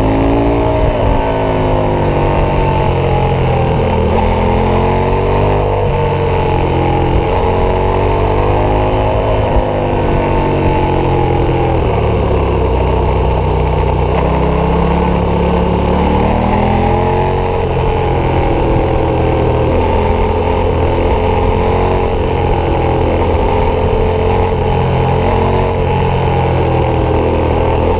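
KTM 1190 Adventure's V-twin engine through an aftermarket Wings exhaust, heard riding along. Its pitch rises and falls again and again as the rider accelerates and backs off through the bends, over steady wind noise.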